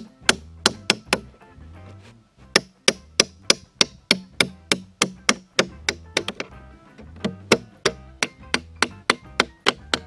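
Quick hammer blows driving a steel nail through the bottom of a clear plastic jug, about two to three sharp strikes a second, with a pause of about a second near the start.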